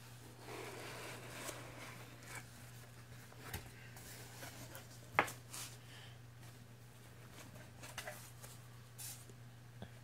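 Hands opening a cardboard box and handling its packing: rustling of cardboard and foam, with a few sharp taps and clicks, the loudest about five seconds in. A low steady hum runs underneath.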